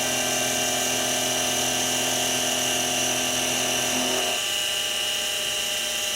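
Mini mill running steadily, its spindle motor whining while the cutter takes a facing pass on a small part. About four seconds in, a lower hum drops out and the higher whine carries on.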